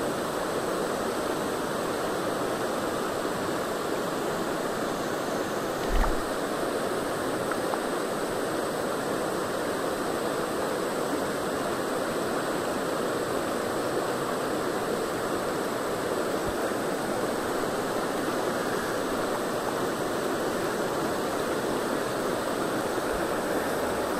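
Shallow, rocky river rushing steadily over stony riffles. A brief low thump sounds about six seconds in.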